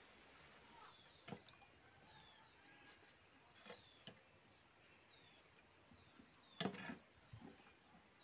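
Faint birds chirping in short calls, over a few soft clicks and smacks of eating rice by hand; the loudest clicks come about two-thirds of the way through.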